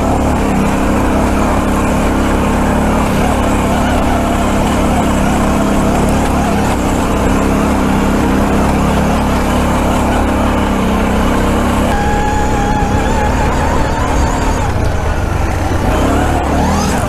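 ATV engine running steadily as the quad is ridden over a loose, rocky trail, heard from on board the machine. A faint higher whine comes in about twelve seconds in.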